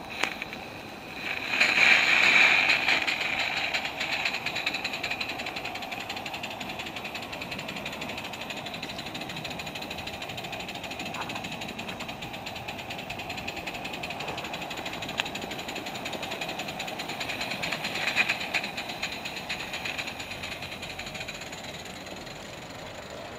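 Aster Krauss 0-4-0 gauge 1 live steam locomotive, gas fired, running with a rapid, even patter of exhaust beats and a steady steam hiss. It is loudest about two seconds in and again later, as it passes close.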